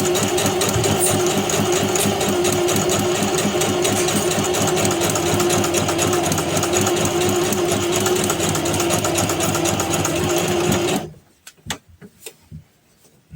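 Sewing machine running steadily at a fast, even stitch, then stopping abruptly about eleven seconds in, followed by a few light clicks.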